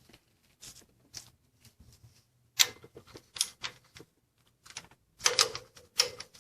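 Sharp metal clicks and clacks from hands working on the engine's timing chain parts: a few light taps, then a loud clack about two and a half seconds in and a quick cluster of louder clacks near the end.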